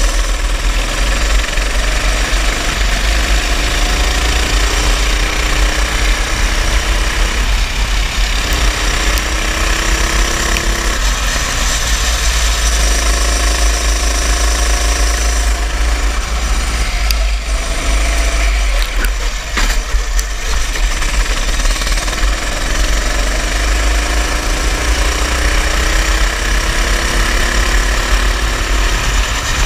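Small go-kart engine running hard with a rattling, vibrating note, its pitch climbing several times as the kart accelerates and dropping back between, over a heavy low rumble.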